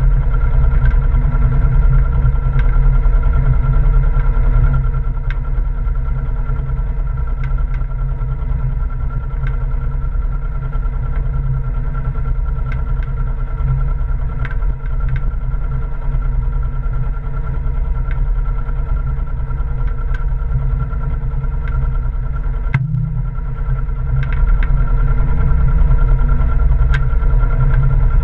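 Small fishing boat's engine running steadily at low revs while a gill net is hauled in, with scattered light knocks from the gear. The engine note drops slightly about five seconds in and rises again a few seconds before the end.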